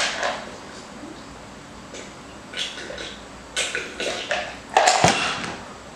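A person gulping a drink from a plastic cup, with a few short gulps and breaths, the loudest about five seconds in.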